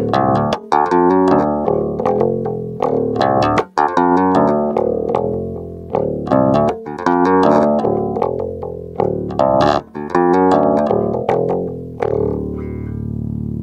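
JCraft Classic R2 four-string active electric bass, played directly into a sound card with no amp: a quick run of plucked notes and riffs, with the last note left ringing out near the end.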